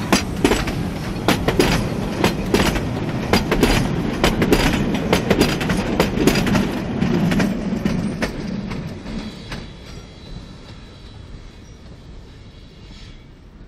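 Narrow-gauge passenger carriages rolling past close by, their wheels clacking over the rail joints in a quick, irregular series over a low rumble. About eight seconds in, the clatter fades as the train pulls away.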